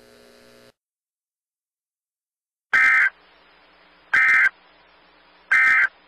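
Emergency Alert System SAME data tones sending the end-of-message code: three identical short bursts of warbling digital data, each about a third of a second long and about a second and a half apart, starting about three seconds in.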